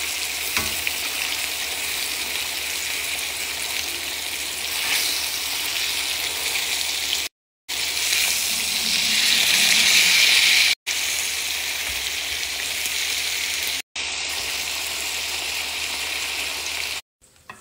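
Steaks sizzling in hot fat in a cast-iron skillet, a steady frying hiss. It grows louder for a few seconds about eight seconds in, as a steak is turned with tongs, and drops out briefly three or four times.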